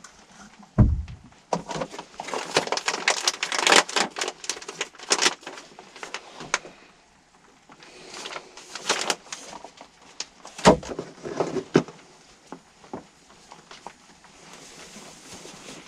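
Rustling with many close clicks and knocks, two dull thumps among them, one about a second in and one a little past the middle, with a quieter lull in between.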